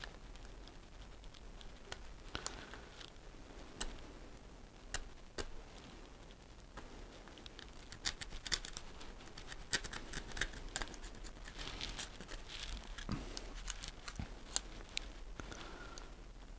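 A metal scribe scraping and picking at built-up scale inside the plastic drain-pump housing of a Dyson CR01 washing machine: a run of small irregular clicks and scratches, busiest in the second half.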